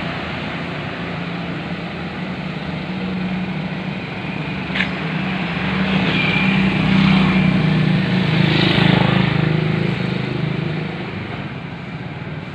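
Motorcycle and street traffic, a steady engine hum that swells between about 6 and 10 seconds as a vehicle passes close. There is a short click about 5 seconds in.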